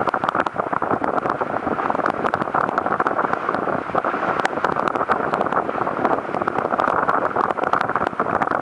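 Wind buffeting the camera microphone over water rushing along the hulls of a Hurricane 5.9 catamaran sailing fast, with many small ticks of spray hitting the camera.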